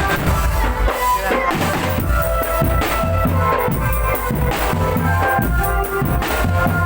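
Drum band playing: bass and snare drums beating steadily under a sustained melody line.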